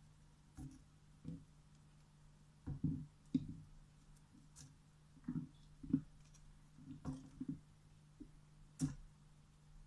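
Irregular soft knocks and clicks of kitchen utensils and dishes being handled, about a dozen over the stretch, over a faint steady low hum.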